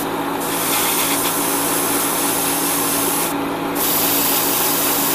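Iwata Neo airbrush hissing steadily as it sprays light green paint onto a small plastic model part. The hiss breaks off briefly twice, at the start and about three seconds in, as the trigger is let off, over a steady low hum.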